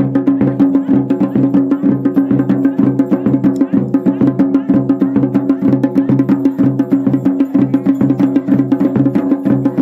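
Procession music: drums beating a fast, even rhythm over a steady, unbroken drone.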